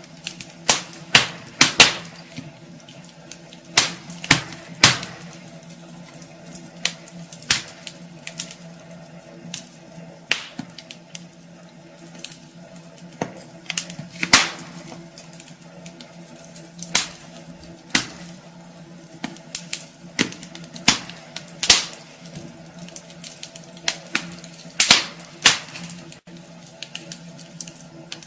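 Wood fire burning in a fireplace, crackling with sharp, irregular pops and snaps, sometimes several in quick succession, over a steady low background.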